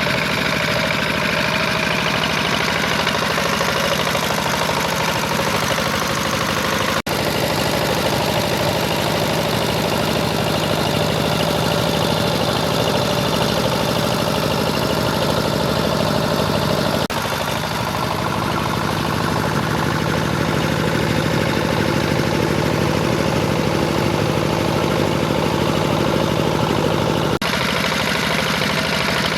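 Power tiller engine running steadily while ploughing a wet paddy field, with the level and tone shifting abruptly about every ten seconds.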